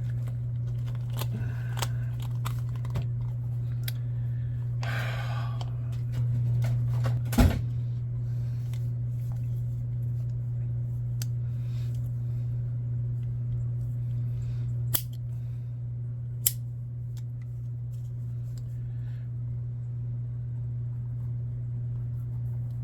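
Small clicks and scrapes of an RC crawler wheel and tire being handled and taken apart, with one sharper click about seven seconds in, over a steady low hum.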